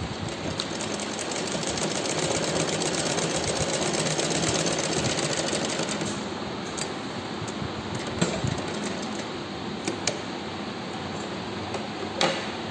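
Usha sewing machine stitching a seam, a fast, even run of needle strokes that stops about six seconds in. A few sharp, separate clicks and knocks follow.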